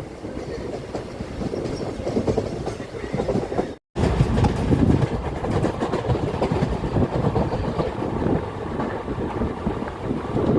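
Passenger train running at speed, heard from on board: a steady rumble with wheels clattering over the rail joints. The sound cuts out completely for a moment about four seconds in.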